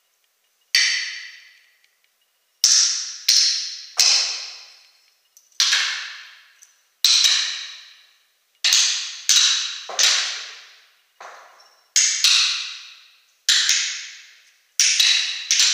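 Sharp clacks of small objects struck together by hand, about fifteen of them at irregular spacing, roughly one a second and sometimes in quick pairs. Each one rings out and fades over about a second.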